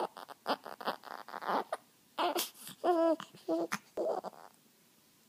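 Newborn baby crying in a run of short, broken cries with breaths between, stopping about four and a half seconds in.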